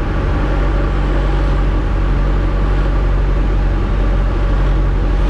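Diamond DA-20's single piston engine and propeller running steadily at low power on final approach, heard from inside the cabin with a steady rush of airflow.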